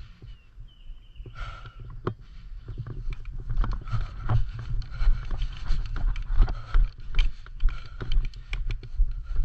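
Footsteps and gear knocks from a player moving on foot, as an irregular run of thuds and clicks that grows denser and louder from about three seconds in, over a steady low rumble.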